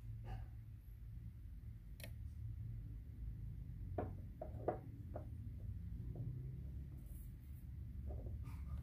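Light taps and clicks of hands handling serabi pancakes and setting them into a glass bowl, bunched about four to five seconds in, over a steady low hum.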